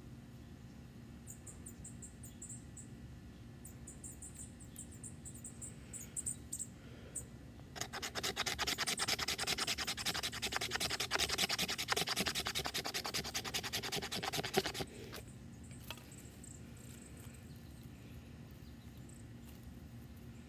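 A knife blade scraping a stick of fatwood (resin-rich pine kindling) in rapid strokes, starting about eight seconds in and stopping about seven seconds later, shaving off fine tinder to catch a fire. Faint light scratches come before it.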